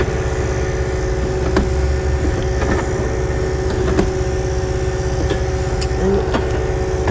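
Low, steady rumble and hum of a semi truck idling, with a few light clicks and knocks as a flat-screen TV is slid onto its wall mount.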